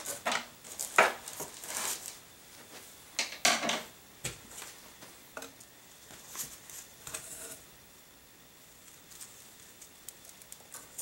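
Cloth tote bag rustling and items being handled and set down, in several bursts over the first four seconds, then a few light taps.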